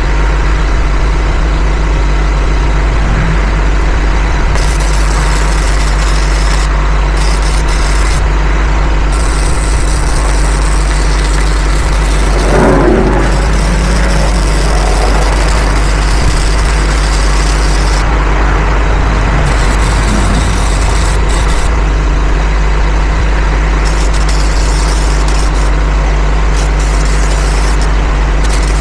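Engine idling steadily with a constant low hum, with a brief louder noise about halfway through.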